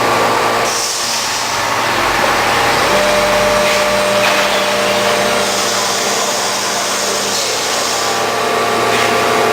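CNC woodworking router running with a steady machine drone and whine. A higher hiss comes in twice: briefly about a second in, and for a couple of seconds in the middle.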